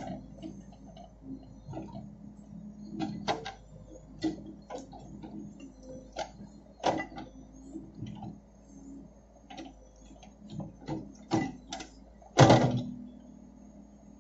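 CASE backhoe loader digging with its rear bucket: the diesel engine runs steadily under irregular knocks and clatters of the bucket working the soil and stones, with one loud thud near the end.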